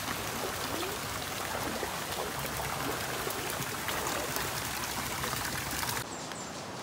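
A steady rushing of running water that changes abruptly about six seconds in to a softer, duller hiss.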